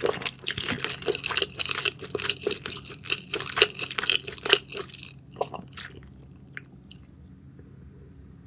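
Close-miked wet chewing and mouth smacking of spicy clams in sauce, a dense run of moist clicks for about five seconds that thins to a few scattered smacks and then stops.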